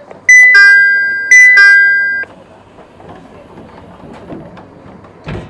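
Electronic two-note 'ding-dong' chime, high note then lower, sounded twice inside a JR East Series 701 train car over a faint steady cabin hum. A short low thump comes near the end.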